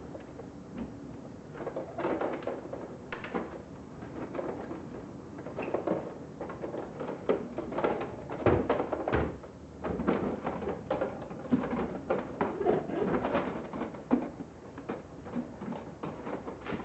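A Christmas deer lawn decoration being taken apart and handled: irregular clicks, knocks and rattles of its pieces, with a heavier knock about eight and a half seconds in.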